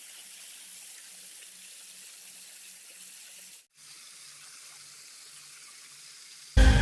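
Water running steadily, with a faint low hum pulsing about three times a second beneath it; the sound drops out briefly a little past halfway, and loud music comes in near the end.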